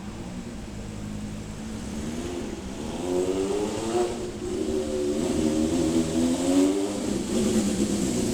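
Yamaha XJ400D motorcycle's air-cooled inline-four engine running, steady at first, then revved with the throttle: its pitch rises and falls several times from about two and a half seconds in, and it settles back near the end.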